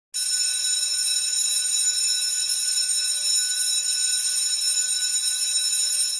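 Electric bell ringing continuously, a steady high-pitched ring that starts abruptly and holds without a break: a school bell signalling that assembly is dispersed.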